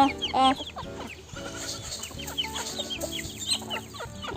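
A flock of chickens clucking and calling over one another, with two loud calls right at the start.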